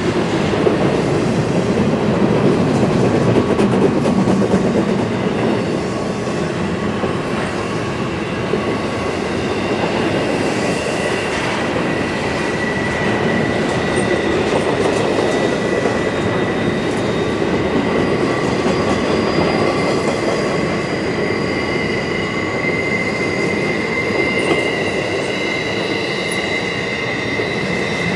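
Double-stack container well cars of a CSX intermodal freight train rolling past steadily, wheels rumbling on the rails. A high, steady wheel squeal grows stronger from about ten seconds in.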